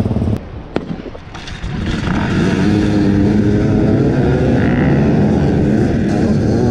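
Many enduro dirt bike engines revving and accelerating away from the start line, building up about two seconds in and then running loud and steady.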